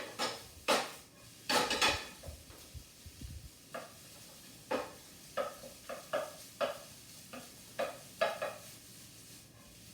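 A cooking utensil tapping and scraping in a non-stick frying pan as rice is chopped apart and stir-fried, in irregular taps, the loudest in the first two seconds, over a faint sizzle.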